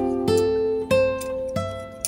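Background music: acoustic guitar picking notes.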